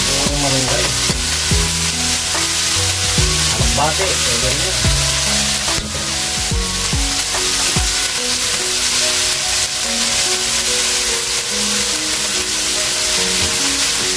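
Diced onion and potato frying and sizzling in a steel wok, stirred with a metal spoon. Music with notes and a beat plays underneath.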